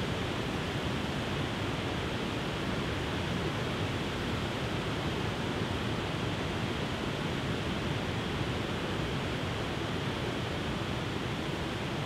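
Tiered waterfall spilling over rock ledges into a pool: a steady, unbroken rush of falling water.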